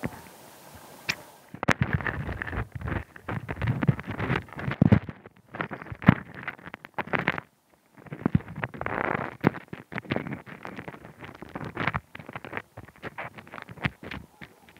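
Hermit crabs fighting, heard underwater through a hydrophone: rapid crackling clicks and knocks of their shells striking each other. The clicking starts about a second and a half in and comes in bouts with brief pauses.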